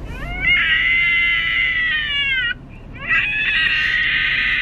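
Child's screaming-crying sound effect played from a prank voice-changer app: two long high-pitched wails with a short break between, the first sliding up at its start and down at its end.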